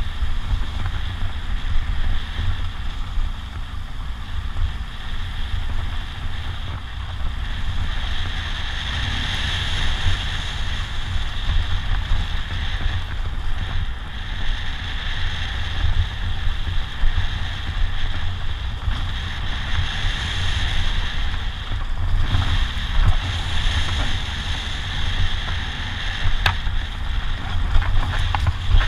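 Heavy wind buffeting on the camera microphone over the BMW R 1200 GS Adventure's boxer-twin engine running, as the bike rides along a dirt track. The rumble stays steady, while a higher rushing tone swells and fades with speed.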